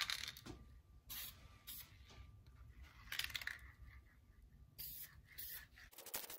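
Aerosol spray can of primer hissing in several short bursts as a light coat is sprayed, the longest burst about three seconds in.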